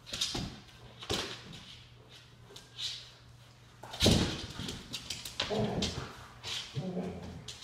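A husky-type wolf dog play-wrestling on a hard floor: thumps and paw scuffles, the loudest thump about four seconds in, then two short animal calls near the end.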